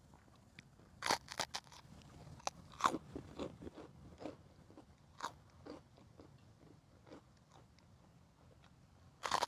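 A person biting and chewing crunchy food close to the microphone: a quick cluster of sharp crunches about a second in and again around three seconds, softer scattered chews through the middle, and another loud crunch near the end.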